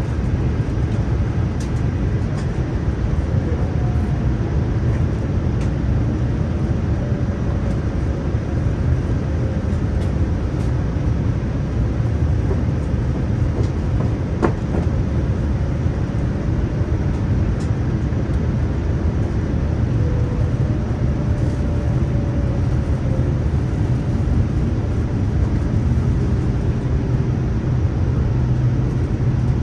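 Steady rumble of engines and rushing air inside the cabin of a Boeing 787-9 in flight, with a faint, slowly wavering tone above it.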